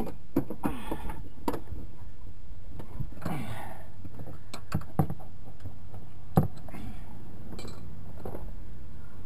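Metal wrench clinking and knocking against a tight strut-mount nut and the surrounding bodywork, with a few sharp clicks, the loudest about six seconds in, and a couple of short rasping sounds between them. The nut is not breaking loose.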